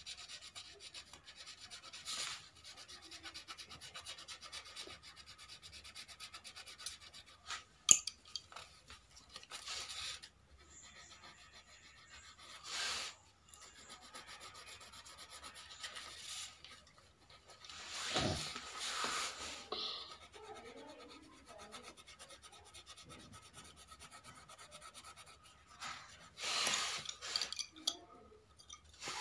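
Coloured pencil scratching on paper in quick back-and-forth strokes, with louder rubbing bursts every few seconds and one sharp click about eight seconds in.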